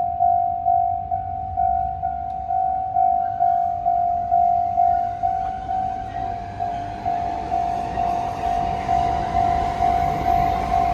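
A Japanese level crossing's warning bell rings on one high tone, about two strokes a second. About halfway through, a passing train's rumble and rail noise build up under it and grow louder.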